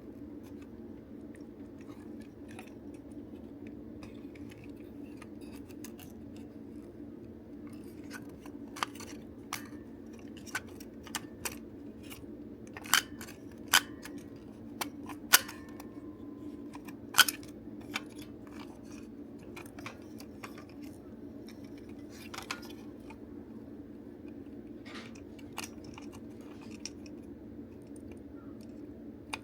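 Sharp clicks and taps of small plastic parts and tools being handled while a DX Bugle Driver Zwei toy belt is taken apart. They come irregularly, mostly in the middle stretch, over a steady low hum.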